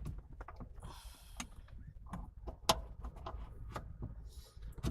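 Scattered clicks and knocks of short-shifter parts being handled and fitted back together, with a sharper click near the middle and a few brief rustles.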